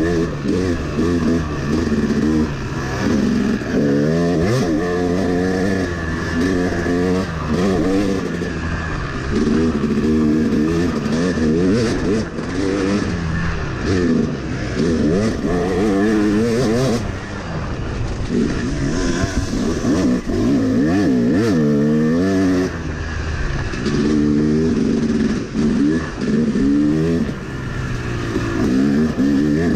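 Yamaha YZ250 two-stroke single-cylinder dirt bike engine under way, revving up and dropping back again and again as the throttle is worked, its pitch rising and falling every second or two.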